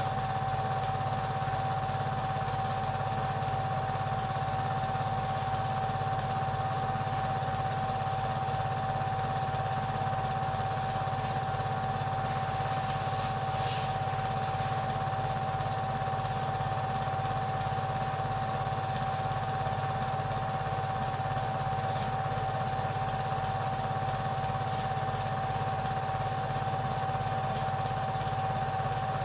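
Small motor running steadily with a constant whine and a low hum: a Super 8 film projector whirring as the silent film plays.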